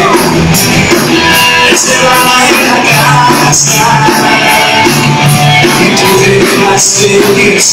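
Live rock band playing loud: electric guitar over a drum kit, with sharp drum and cymbal hits cutting through.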